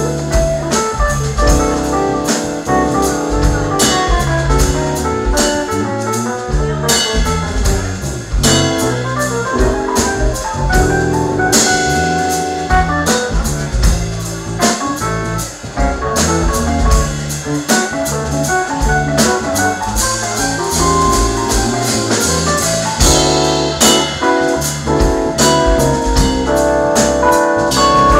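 Live jazz band playing: keyboard or piano chords over electric bass and drum kit, with regular cymbal and drum hits.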